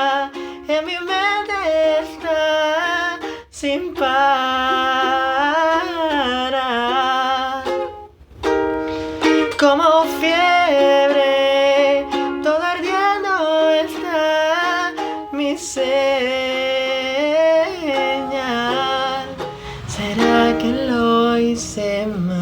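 A solo voice singing a slow, gentle melody over an acoustic ukulele accompaniment, with two brief pauses in the singing.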